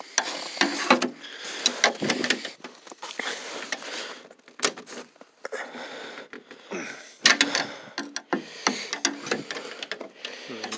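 Irregular clicks, knocks and rattles of a backhoe cab door and its latch being worked, the door frozen shut.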